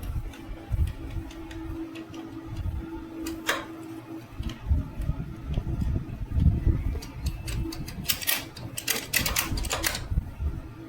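Quick metallic clicks and clinks of hand tools working on motorcycle engine and gearbox parts, with a dense run of rapid clicks near the end, over a steady fan hum.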